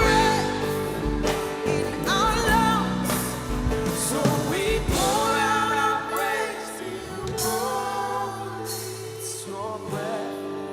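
Live worship band music with a singer's voice gliding over sustained chords; the drums and bass drop out about six seconds in, leaving a softer accompaniment.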